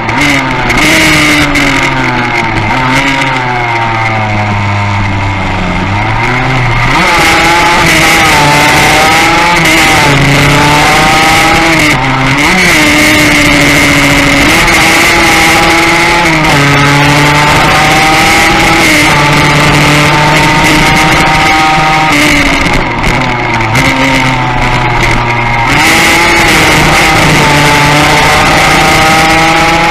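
Classic Yamaha racing motorcycle engine heard from on board, revving hard through the gears: the pitch climbs, drops at each gear change, and climbs again. A steady rush of wind over the fairing runs underneath, and near the end the engine briefly eases off before pulling hard again.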